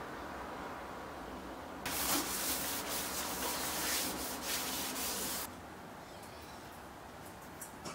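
A white wipe rubbed over the stainless-steel body and drip tray of an espresso machine: a scratchy rubbing that starts about two seconds in and stops about three and a half seconds later.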